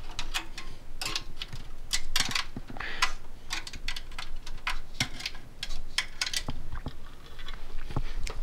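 Irregular clicks, taps and rustles of an HDMI cable and its plug being handled.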